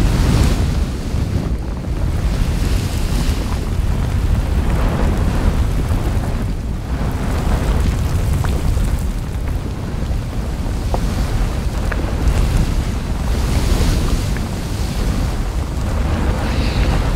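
Erupting volcanic vent, lava fountaining and spattering in its crater: a deep, steady rumble with swells of rushing noise that rise and fall every few seconds.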